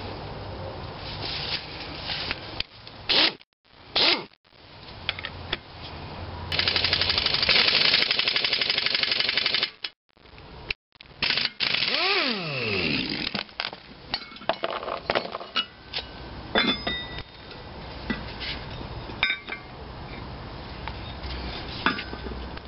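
Metal clinks as a homemade gib key puller is fitted to a cast-iron engine flywheel, then an air impact wrench hammers on the puller's bolt for about three seconds, drawing a stuck gib key out of the flywheel hub. A second, shorter run follows, its whine falling away as it stops, and light metal clinks and rattles follow that.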